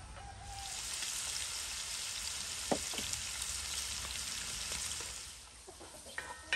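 Diced fat sizzling hard in a hot pan as it renders, stirred with a wooden spoon. The sizzle fades after about five seconds. There are two light knocks about midway, and a sharp ringing knock right at the end.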